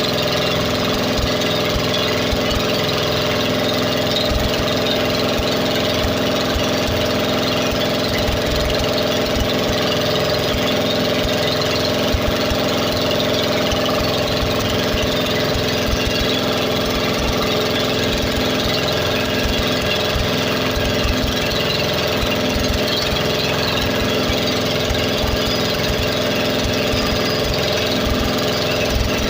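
Engine running steadily at constant speed, with a low, uneven rumble underneath.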